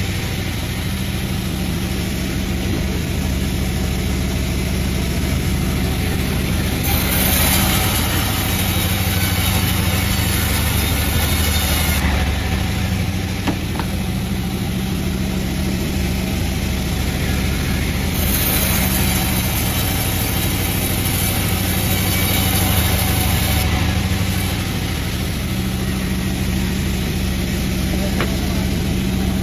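Saw machine's engine running steadily while sawing jackfruit wood, with a harsher, hissier cutting noise rising twice, each time for about five seconds.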